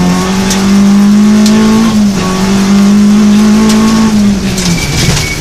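Rally car engine heard from inside the cabin, held at high revs under full throttle, with a brief dip about two seconds in as it changes up, then dropping off near the end as the throttle comes off. Sharp clicks of gravel striking the car are scattered throughout.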